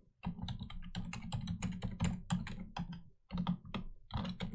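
Typing on a computer keyboard: a quick, uneven run of key clicks, with a short pause a little past halfway.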